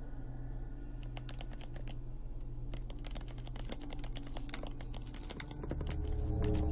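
Knife blade prying and scraping at the lid of a carved wooden box, making a quick, irregular run of small clicks and scratches. A steady low drone runs underneath and swells louder near the end.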